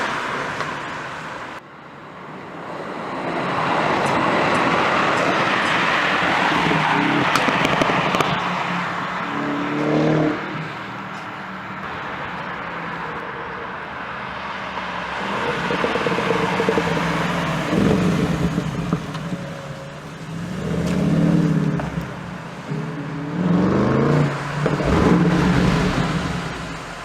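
Bentley Continental GT3-R's 4.0-litre twin-turbo V8 with Akrapovic titanium exhaust accelerating several times, its note rising about 9, 17, 21 and 24 seconds in, over steady street noise.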